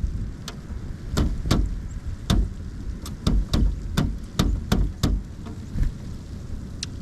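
Pileated woodpecker pecking at wood: a dozen or so single knocks, unevenly spaced, not a drum roll. A low rumble of wind on the microphone runs underneath.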